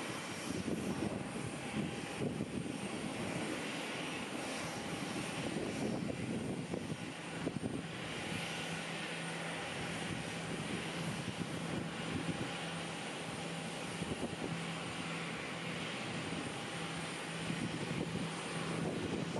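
Airliner engines running with a steady rumble and hiss. A steady low hum joins about seven seconds in.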